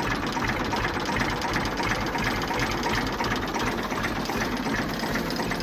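Massey Ferguson MF 240 tractor's three-cylinder diesel engine idling steadily and evenly.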